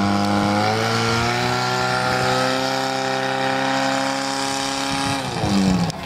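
Portable fire pump's engine running hard at steady high revs, then dropping in pitch as it is throttled back near the end.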